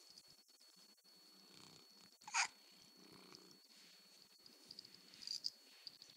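A sleeping pet snoring softly, with slow breaths and one short, louder snort about two seconds in.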